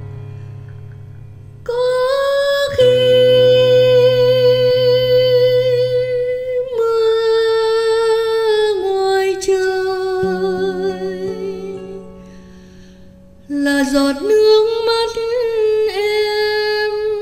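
Female vocalist singing long, held notes with vibrato over a soft keyboard accompaniment. Her voice comes in about two seconds in and drops out briefly near the three-quarter mark before returning.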